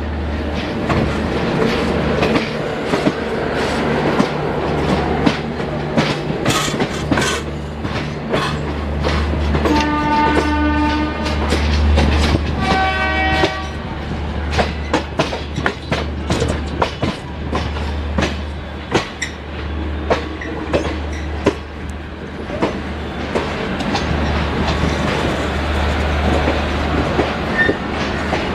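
Passenger coaches rolling through station yard tracks, the wheels clacking over rail joints and points in irregular clicks above a steady low rumble. A locomotive horn sounds twice, about ten and thirteen seconds in.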